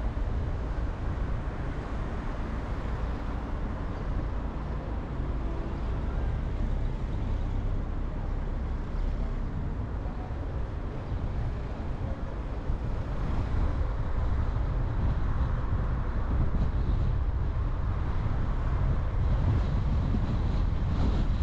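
Steady low rumble of a car driving along a road, tyre and wind noise without distinct events, getting a little louder about two-thirds of the way through.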